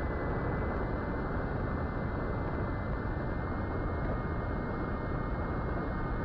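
Onboard audio of a fixed-wing FPV plane in cruise flight: a steady rush of wind over the camera mixed with the drone of its brushless motor (Brotherhobby Avenger 2808) and 8-inch propeller. A faint, steady high whine runs through it.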